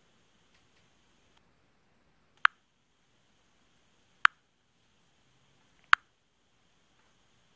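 Four short, sharp pops, evenly spaced about a second and a half apart, with near silence between them.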